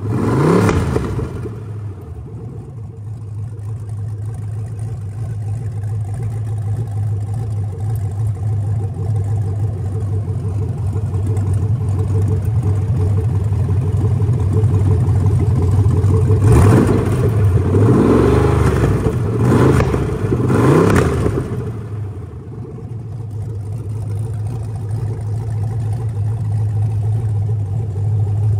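A 6.0-litre L76 V8 fitted with an LS9 camshaft idling on a test stand. A rev dies away in the first second, and about two-thirds of the way through the throttle is blipped three times in quick succession, each rev rising and falling before the engine settles back to idle.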